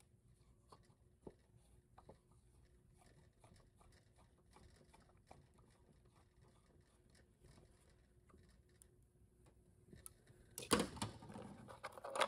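Faint, scattered small clicks of a screwdriver turning a threaded plug into a Volkswagen 01M/01P transmission valve body, then a louder burst of handling noise for about a second and a half near the end.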